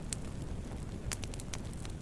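Wood campfire burning: a steady low rumble of flames with several sharp crackles and pops from the burning wood, scattered irregularly.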